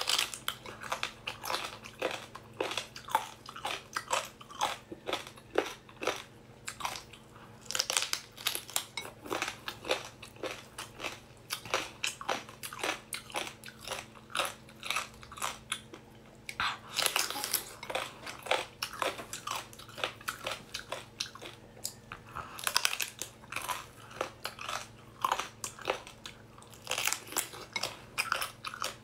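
Biting and chewing of a large gelatinous sea cucumber: a steady run of wet, crunchy bites and mouth sounds, with denser bursts of crunching every few seconds. A faint steady hum sits underneath.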